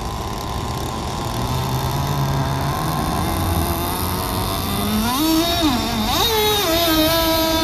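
Radio-controlled model speedboat's motor running, its pitch climbing about five seconds in, wavering, then holding a steady high whine near the end.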